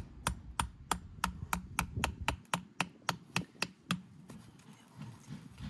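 A small hammer tapping a U-shaped steel turf pin down through artificial grass into the ground: a quick, even run of about fifteen light strikes, roughly three a second, that stops about four seconds in.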